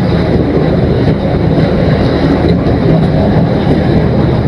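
Engine of a small motorised trawler boat, running steadily under way.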